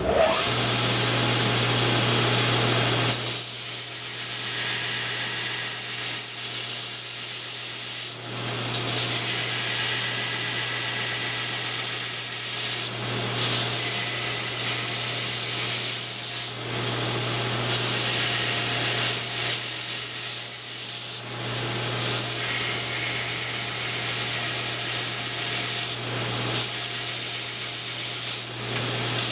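A belt sander starts up and grinds the ends of a steel snowblower scraper blade, a steady grinding hiss over the motor's hum. The grinding dips briefly about six times as the blade is lifted off and pressed back onto the belt.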